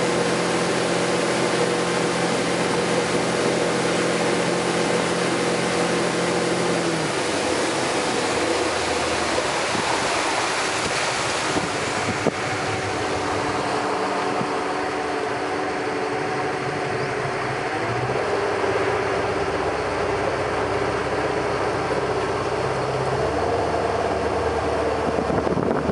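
Ski boat's engine running steadily under way while towing a water skier, with wind and rushing water from the wake; its low hum drops lower about seven seconds in.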